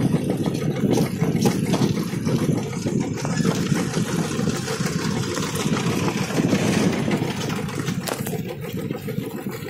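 Royal Enfield motorcycle's single-cylinder engine running at low, steady road speed on a dirt track, a continuous low, choppy exhaust note. A rushing hiss sits over it through the middle and fades near the end.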